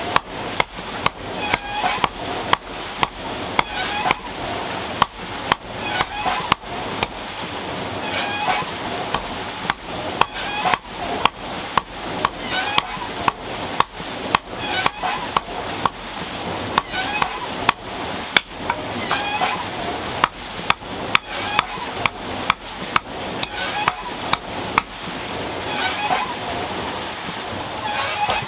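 Hand hammer striking a red-hot iron bar on an anvil block, about two blows a second with a sharp ring, forging the bar into nails.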